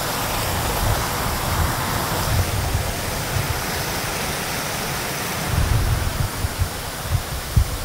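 Mountain torrent rushing over small cascades between boulders: a steady hiss of falling water. A few low thumps come in the last two seconds.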